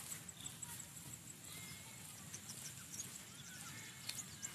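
Faint open-air ambience: a low steady rumble with scattered short chirps and light clicks.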